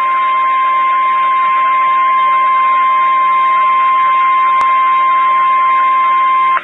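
Weatheradio Canada's 1050 Hz warning alarm tone: one steady high tone held over radio hiss and hum, announcing a severe weather alert. It cuts off abruptly just before the end, with a brief click a little past halfway.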